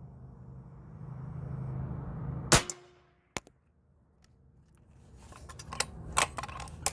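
Air rifle firing a single pellet shot about two and a half seconds in, followed by a short click. Near the end come several sharp metallic clicks as the action is cycled to bring the next pellet up from the rotary magazine.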